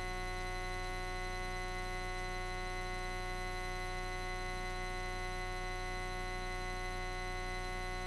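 Steady hum of several pitches held at once in the cockpit audio of a light aircraft in flight, with no change in pitch or level.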